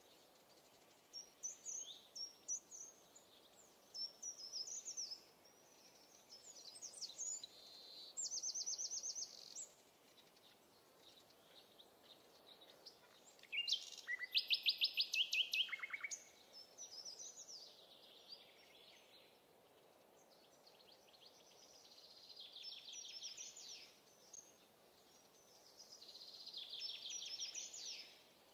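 Songbirds singing: a run of high chirping phrases and quick trills every few seconds, the loudest a fast trill about halfway through, over a faint steady hiss.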